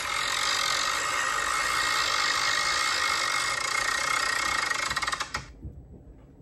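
Spinner-wheel app on a phone playing its ticking sound through the phone's speaker as the wheel spins: a rapid rattle of ticks that slows and cuts off about five seconds in.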